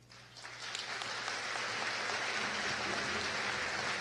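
A large audience applauding: it starts about a third of a second in, builds over the first second, then holds as steady clapping of many hands.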